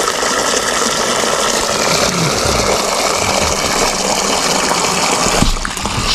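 Water running from an outdoor hose spigot into a shallow bowl with a steady rushing splash. The flow stops near the end, as the spigot is turned off.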